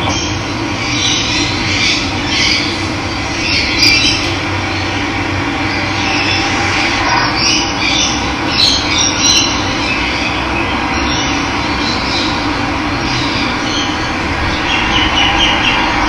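Steady rush of running water, with birds calling and chirping over it in short, scattered calls.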